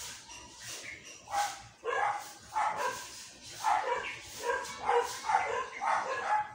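A dog barking in a rapid run of short yapping barks, two or three a second, starting about a second and a half in.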